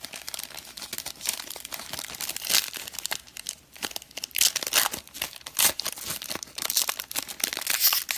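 Crinkly wrapper of a Topps Tier One baseball card pack being torn open and crumpled by hand: irregular crackling and tearing with several louder crinkles.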